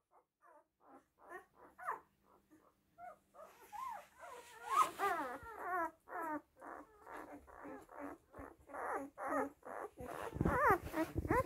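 Newborn puppies squeaking and whimpering while they nurse: short, wavering high cries, about two a second, quieter at first and louder from about three seconds in.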